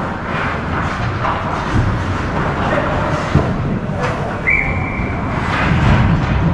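Hockey game play: a steady noisy haze of rink sound with sharp knocks of sticks and puck, and one short referee's whistle blast about four and a half seconds in.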